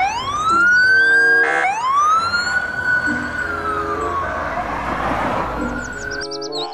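Czech police car's siren wailing: two rising sweeps, the second held and then falling away, over the noise of passing traffic.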